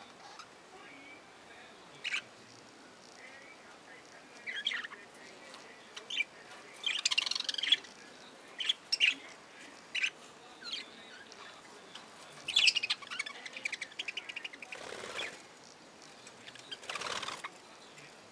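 Budgerigars giving scattered short chirps and runs of chattering calls, with a couple of brief bursts of wing flapping near the end.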